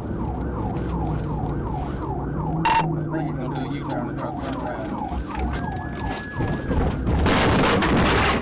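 Police car siren in yelp mode, rising and falling about three times a second over the patrol car's engine, then holding one long tone. Near the end, a loud rough noise as the PIT maneuver hits the fleeing car and both cars skid through dirt.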